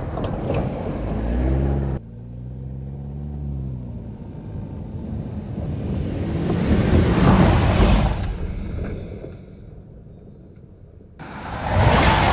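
Toyota Tacoma pickup's engine revving as it drives an off-road dirt trail, its pitch rising and then falling. The truck's noise then builds as it comes up close, fades, and jumps up loud again near the end as it passes right by.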